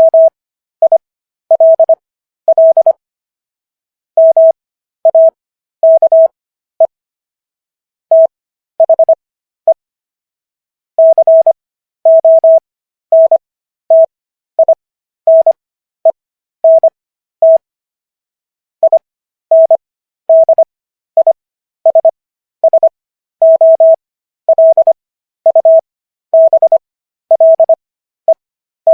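Morse code practice audio: one steady beep keyed on and off in dots and dashes, spelling out Walt Whitman's poem 'For You O Democracy'. Letters are sent at 25 words per minute with Farnsworth spacing, which leaves longer gaps between letters and words for an overall speed of 15 words per minute.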